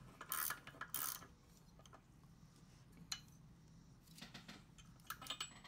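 Faint, scattered metallic clicks and taps of a hand wrench and small engine parts being handled, with a few clicks about a second in, a sharp one midway and a cluster near the end.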